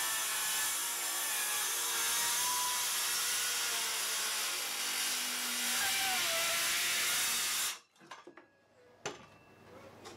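DeWalt cordless circular saw ripping freehand through a thick valley oak slab, with a shim wedged in the kerf behind it to keep the oak from pinching the blade. The steady cutting noise stops abruptly a little under 8 seconds in, followed by a few light knocks.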